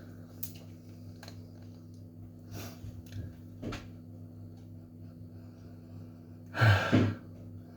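A man sniffing: a few faint short sniffs, then two loud sniffs in quick succession near the end.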